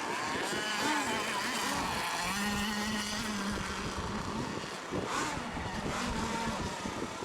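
Several radio-controlled racing boat engines running and revving together, their pitches rising and falling over one another as the boats circle.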